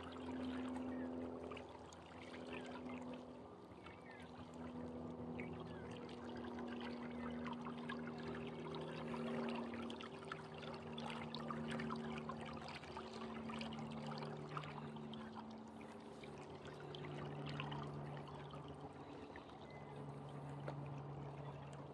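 Small waves lapping and trickling at the lake's edge, with a low hum underneath that steps up and down in pitch every second or two.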